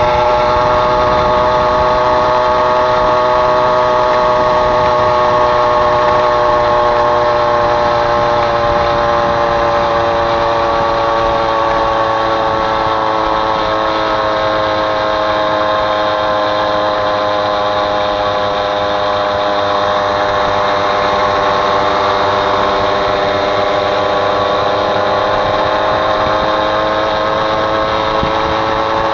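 Small two-stroke Mobylette moped engine running steadily, its pitch dipping slightly about halfway through and then holding.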